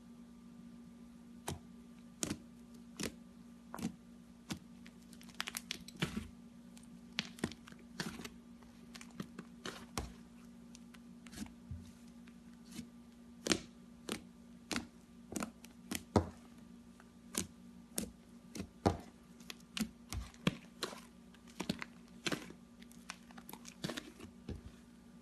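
Slime being squeezed and poked by hand, giving irregular sticky clicks and small pops, one or two a second, over a faint steady hum.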